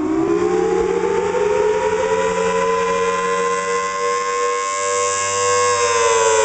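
Federal Signal Thunderbolt 1003 outdoor warning siren wailing: its pitch winds up over a few seconds, holds high, then starts winding back down near the end. The rise-and-fall wail is the siren's attack signal.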